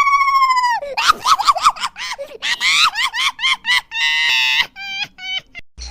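A young child squealing in a very high voice: one long squeal, then a quick run of short laughing yelps, another held squeal about four seconds in, and a few short squeaks near the end.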